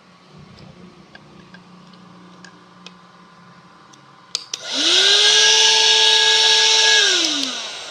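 Cordless handheld vacuum cleaner switched on with a click or two, its motor whining up to speed and running loud and steady for about two seconds, then switched off and winding down with a falling whine.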